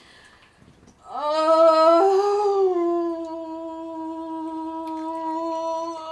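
A woman in transition labor vocalizing through a contraction: starting about a second in, one long moan that rises slightly and then is held on a single steady note.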